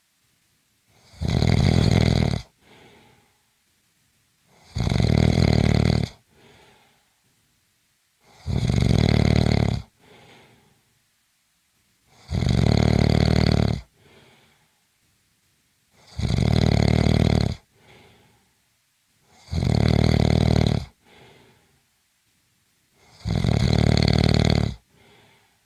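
A person snoring in a steady rhythm: seven loud, buzzing snores of about a second and a half each, roughly one every four seconds. Each is followed by a faint, short breath.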